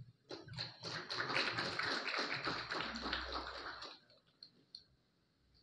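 Audience clapping, a dense patter of many hands that fades away about four seconds in, followed by a couple of last single claps.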